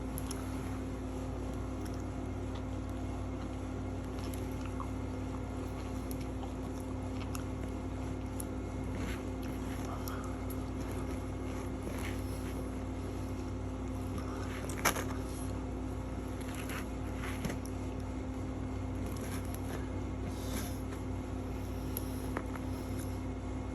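Someone chewing steak with faint mouth sounds and scattered small clicks over a steady low hum. One sharp click comes about fifteen seconds in.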